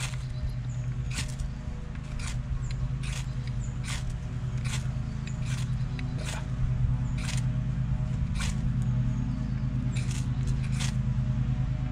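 Knife spine scraped down a ferrocerium rod to throw sparks onto tinder, one sharp scrape roughly every second. A steady low hum runs underneath.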